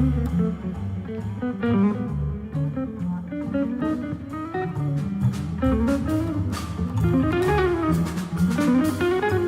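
Jazz quintet playing: a guitar stands out over drums and a double bass line, with vibraphone and trombone also in the band.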